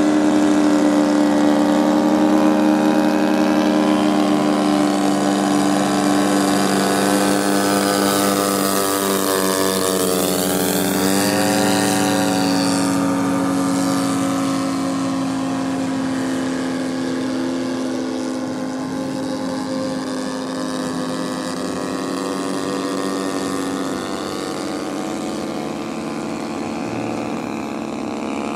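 Radio-controlled model airplane engine droning steadily in flight, its pitch stepping down as the plane passes about eleven seconds in and again near twenty-four seconds.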